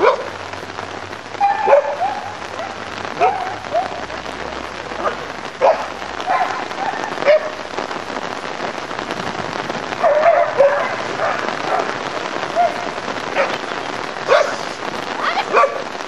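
A dog barking repeatedly in short, sharp barks over a steady hiss, the barks coming thicker from about ten seconds in.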